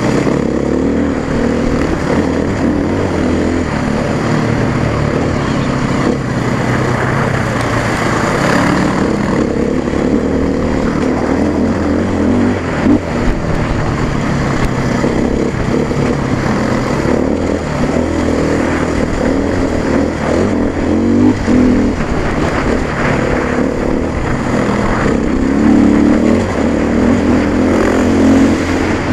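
Dirt bike engine running under way on a rocky trail, its note rising and falling with the throttle. It is louder and higher for a while near the end.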